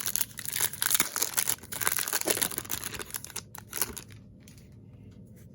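Plastic wrapper of a Topps Chrome baseball card pack being torn open and crinkled for about three and a half seconds, then fading to a few light handling clicks.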